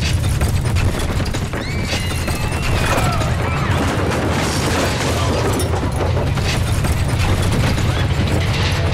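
Earthquake sound effect: a deep continuous rumble with crashing and cracking of collapsing buildings, and a few high sliding sounds about two seconds in.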